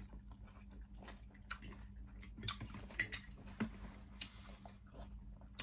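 Metal forks clinking against ceramic plates in a few short, light clicks, with faint chewing of noodles.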